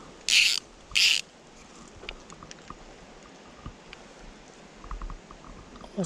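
Click-and-pawl fly reel buzzing twice in quick succession as line is pulled off it by hand, each pull a short rasping ratchet burst, followed by faint handling clicks.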